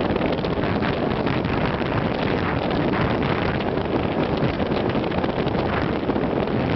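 Steady wind noise buffeting the microphone of a camera mounted above a motorcycle's windscreen while riding along at road speed.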